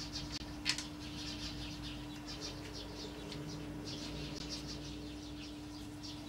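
Small birds chirping in quick runs over a steady low hum, with one sharp click about two-thirds of a second in.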